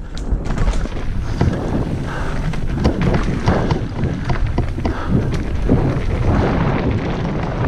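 Mountain bike riding down a rough, rooty trail: wind buffeting the microphone over a steady rumble, with frequent knocks and rattles as the bike runs over roots and rocks.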